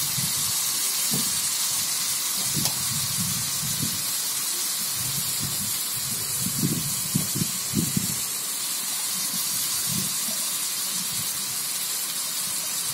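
Chopped onions sizzling steadily in hot oil in a kadai.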